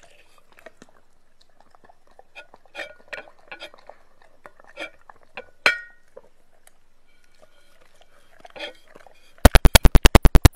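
Dog licking and nosing at a ceramic plate and bowl: scattered wet licks and light clinks of ceramic, one louder ringing clink about five and a half seconds in. Near the end a loud electronic scratch effect begins, rapid even pulses about nine a second.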